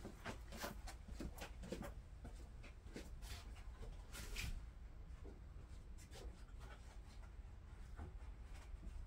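Faint scattered knocks, scrapes and footsteps of a person moving about and handling things in a small garage, with one longer scrape about four seconds in.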